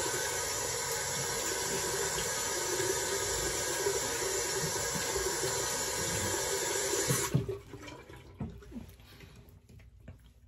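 Sink faucet running steadily during a face rinse, shut off suddenly about seven seconds in, followed by a few faint knocks.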